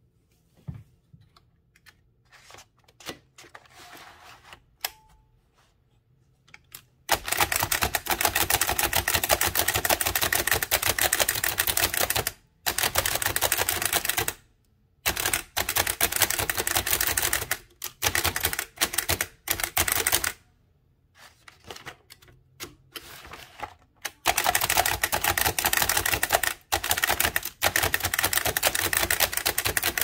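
A 110-year-old Bennett single-element (type-cylinder) typewriter being speed-typed: a dense, rapid clatter of keystrokes in long runs with short pauses, starting about seven seconds in after a few faint scattered clicks, with a longer lull a little past the middle.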